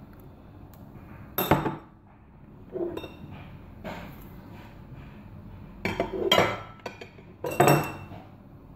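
A glass dish and a metal utensil clinking and scraping against a ceramic salad bowl as kidney beans and sausage strips are tipped and scraped in. The sound comes as several separate clattering bursts.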